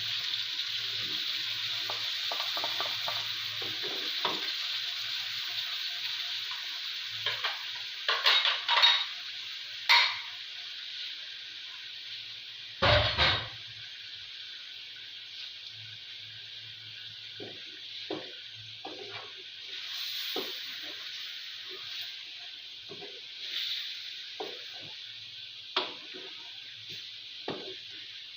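Chicken pieces sizzling with spices and yogurt in a cooking pot while a metal spoon stirs and scrapes against the pot, with a few louder clanks of spoon on pot around the middle. The sizzle gets quieter about halfway through.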